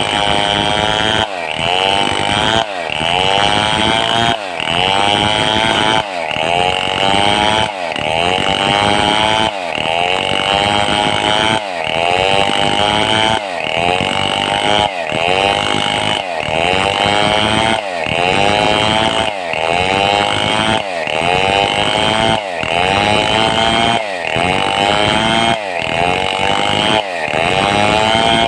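Stihl 070 two-stroke chainsaw running at high revs while sawing a mahogany log. Its pitch drops and climbs again about every second and a half, over and over, as the chain loads up in the cut and recovers.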